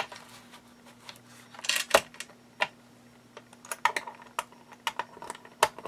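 Small sliding-blade paper trimmer cutting kraft cardstock: the plastic cutter scrapes and clicks along its track and the card rustles as it is handled. There is a short scrape about two seconds in and sharper clicks near four seconds and near the end.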